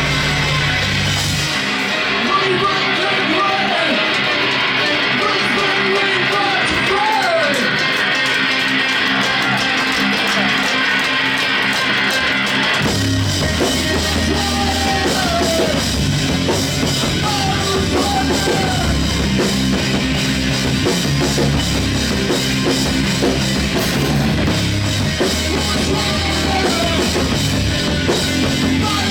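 A rock band playing live: electric guitars carry a quieter stretch with the bass and drums dropped out, then the full band with bass and drums comes back in about thirteen seconds in.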